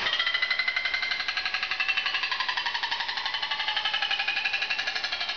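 Handheld electric power tool cutting through sheet metal with a rapid, even stream of strokes, a harsh metallic chatter with a wavering high whine. It starts right at the beginning and stops near the end.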